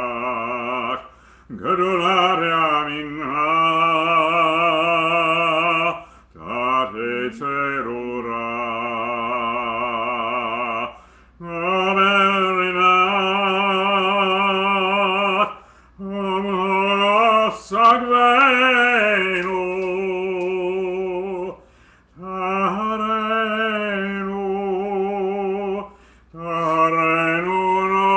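Male cantor singing a slow liturgical chant, long held notes with strong vibrato, in phrases separated by short pauses for breath.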